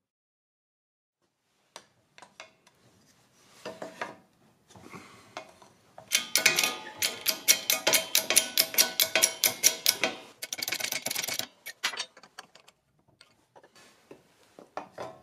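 Knocks and clicks as the mini mill's gearbox housing and a wood block are handled and set up under a press ram, then a fast run of sharp metallic clicks, about five a second for some four seconds, followed by a short rasp.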